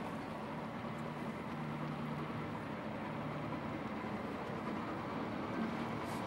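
Boat engine running steadily: a low, even hum under a steady hiss.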